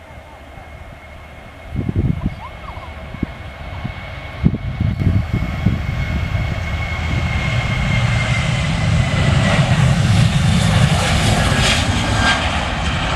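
Twin-engined jet airliner's engines growing steadily louder as the aircraft comes closer, a deep rumble under a high whine that dips slightly in pitch about nine seconds in. Two short low thumps sound about two and four and a half seconds in.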